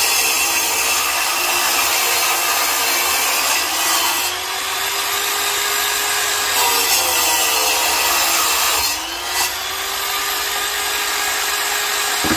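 Large angle grinder mounted on a stand cutting brick with a water-cooled blade, a loud continuous grinding whine. The motor's pitch dips and climbs back twice, about four and nine seconds in.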